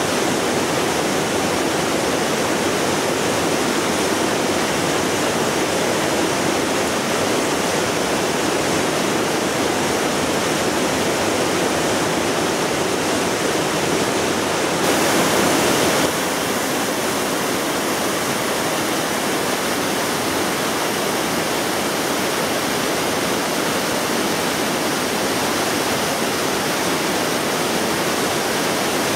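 Fast white-water river rushing, a steady noise of churning water; its tone shifts briefly about halfway through.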